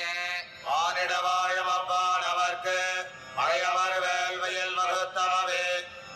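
Men chanting Tamil devotional verse in long sung phrases, each starting with a rising glide, with short breaths about half a second and three seconds in.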